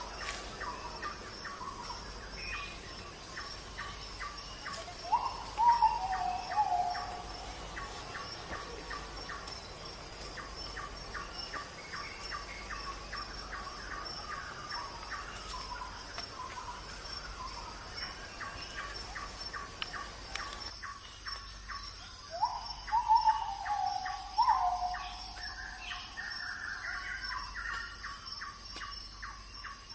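A kitten mewing, two loud falling cries about five seconds in and again past twenty seconds in, over steady background bird chirps and a rapid, even ticking chirp.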